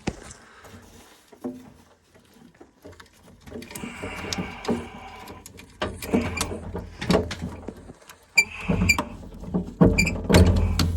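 Hands working push-on electrode leads off a gas boiler's burner, twisting them loose: irregular clicks and knocks with a couple of brief squeaks, the knocks loudest near the end.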